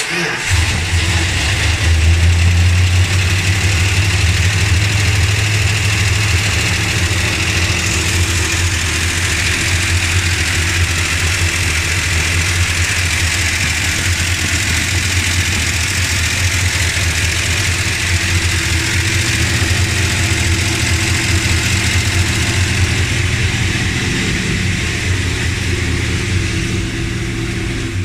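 Dodge Ramcharger engine starting and then idling steadily, with the tick in the motor that the owner means to cure by replacing the push rods and rocker shafts.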